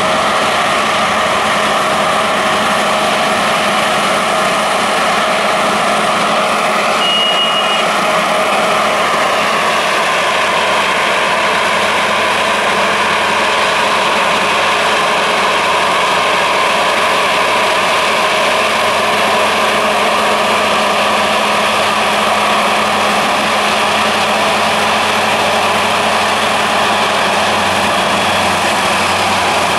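Rostselmash Torum 780 combine harvester running while harvesting wheat: a steady loud machine drone with a held whine that sags slightly in pitch about ten seconds in. A short high beep sounds once about seven seconds in.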